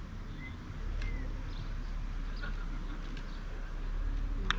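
Outdoor ambience: a steady low wind rumble on the microphone, with scattered short bird chirps and two sharper chirps near the end.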